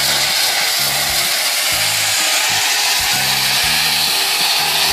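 Gravel pouring out of a tipping dump truck bed, a steady rushing hiss, with music and a bass line of short low notes underneath.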